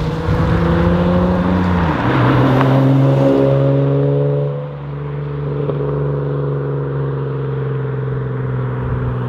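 Lexus IS300's naturally aspirated 2JZ inline-six, breathing through a cheap long-tube header and a small 12-inch muffler, accelerating past in a drive-by. It is loudest over the first few seconds as the car passes, with the engine note dropping in pitch about two seconds in, then holds a steadier, quieter note as the car pulls away.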